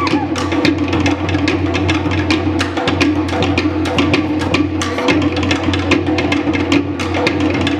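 Live Tahitian drum ensemble playing a fast, continuous rhythm: wooden to'ere slit drums struck in rapid, even strokes over the deeper, steady beat of pahu and fa'atete skin drums.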